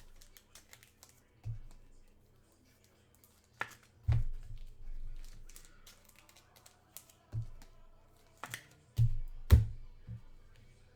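Trading cards and their packaging handled on a table: scattered taps, clicks and rustles, with a couple of louder knocks near the end.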